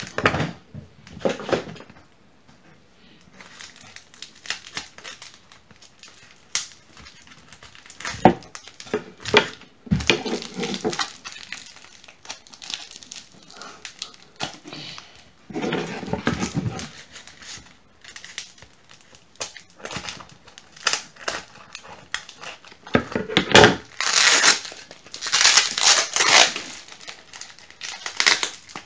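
Packaging being unwrapped by hand: the wrapping crinkles in irregular bursts and is torn at intervals, loudest in a run of tearing and crinkling about 24 to 27 seconds in.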